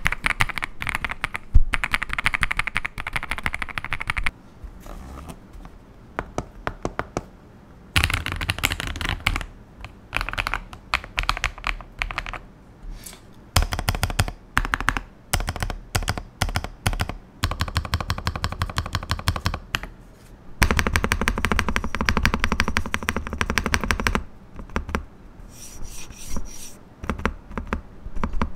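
AJAZZ AK870 hot-swappable mechanical keyboard being typed on: bursts of fast key clicks and clacks with short pauses between them, and a dense rapid clatter of key presses about three-quarters of the way through.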